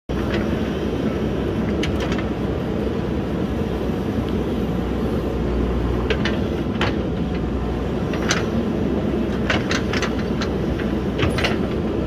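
JCB backhoe loader's diesel engine running steadily as the backhoe arm swings and digs, with several sharp clicks and knocks scattered through it.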